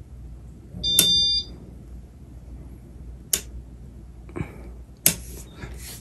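Casablanca Venus ceiling fan's control board giving one short, high electronic beep, acknowledging the command to switch to speed one. A few sharp clicks follow later.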